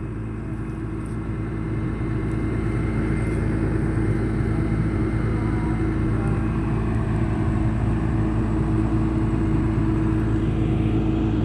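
Diesel engine of a horizontal directional drilling rig running steadily, picking up slightly about two seconds in.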